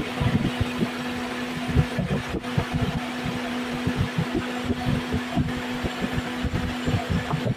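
A Toyota Vios four-cylinder petrol engine running at idle with a steady hum, over an uneven low rumble and thumps.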